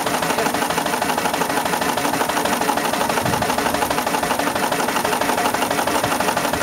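Steam engine running steadily, with a fast, even clatter of exhaust beats and moving parts.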